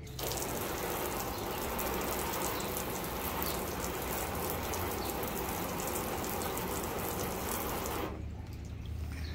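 Garden hose spraying a stream of water onto a car's hood: a steady rush of splashing water that stops suddenly about eight seconds in.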